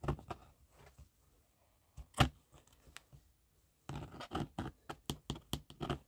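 Thin metal rod prying and scraping inside a rubber boot sole against the metal shank, opening the gap so PVC glue runs in around the loose shank. A few separate sharp clicks, then a quick run of scraping clicks from about four seconds in.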